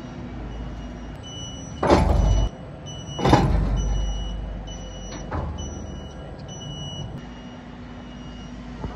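Electric rail transfer tractor running with a steady hum while its warning beeper gives short, repeated high beeps. About two seconds in there is a loud half-second scrape that stops abruptly, then a louder metallic clank that rings on for about a second, and a lighter click a couple of seconds later, as the automatic towing hook works.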